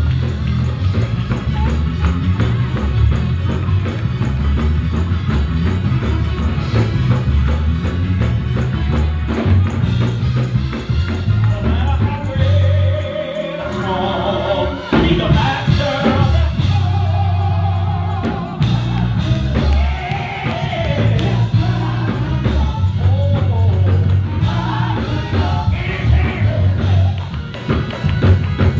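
Gospel praise music with a heavy pulsing bass and tambourine, voices singing over it from about halfway through.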